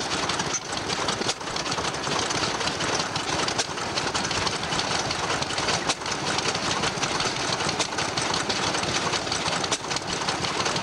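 Vintage single-cylinder stationary engine with twin flywheels running steadily, with an even mechanical beat throughout.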